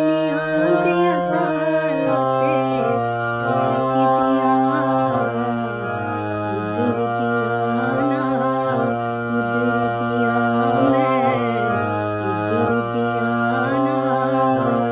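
A woman singing a slow Punjabi song, her voice bending and ornamenting the notes, over a harmonium playing sustained reedy chords that change step by step.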